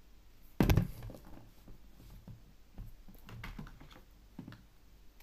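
A sharp knock about a second in, then light clicking and rustling as stiff folded paper origami pieces are handled and fitted together.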